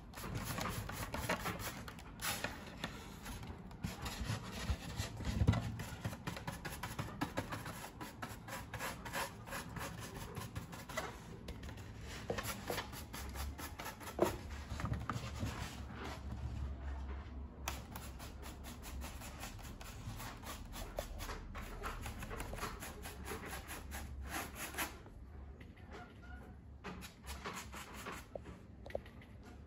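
Wide, stiff paintbrush dry-brushing nearly dry white acrylic paint over a rough, painted polystyrene model tower: quick scratchy back-and-forth bristle strokes. The strokes grow softer near the end.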